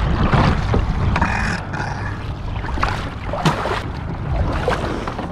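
Wind rumbling on the microphone, with scattered splashes and hard knocks as duck decoys are lifted dripping out of the water and dropped into a wooden boat.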